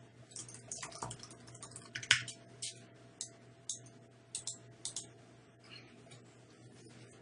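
Computer keyboard keys tapped one at a time as a password is typed in: faint, separate clicks at an uneven pace, a dozen or more over several seconds.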